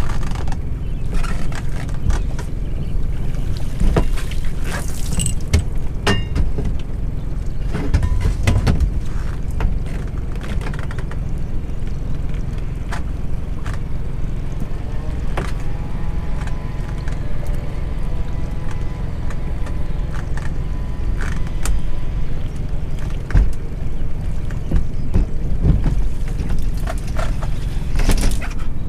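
Steady low rumble of wind on the microphone and water against a small boat's hull while a lobster pot line is hauled in by hand, with scattered knocks and clatters.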